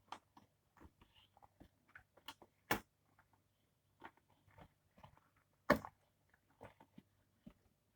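Cardboard and plastic packaging being handled and opened: scattered crinkles, rustles and small taps, with two louder sharp snaps about three and six seconds in.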